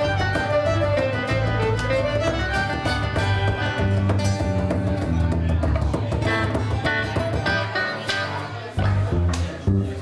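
Celtic folk band playing a tune on fiddle, guitars and banjo over a bodhrán frame drum. The tune ends near the end with a couple of final accented strokes.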